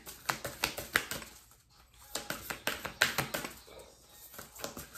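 A deck of reading cards being overhand-shuffled by hand: quick, irregular papery clicks and snaps in bursts, with a short pause around the middle.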